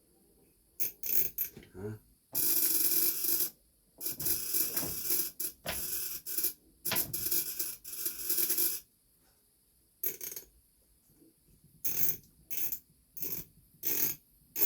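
Radiostat high-frequency violet ray device switched on for a test, its high-frequency spark discharge buzzing in a series of bursts of one to two seconds that stop and restart, then shorter bursts later on. The uneven running suggests the repaired device still needs some adjustment.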